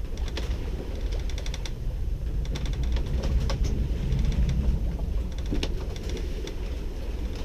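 Sailboat hardware creaking and clicking in several quick runs, over a low rumble of wind on the microphone.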